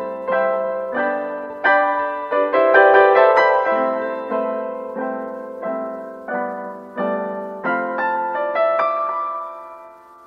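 Background piano music: slow chords struck one after another, each ringing and fading, with the music dying away near the end.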